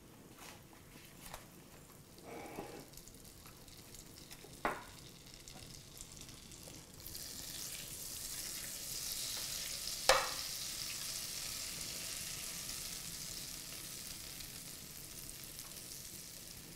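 Butter melting into hot oil in a frying pan, quiet at first, then sizzling and foaming from about seven seconds in. There are a few light knocks early on and one sharp knock around ten seconds in.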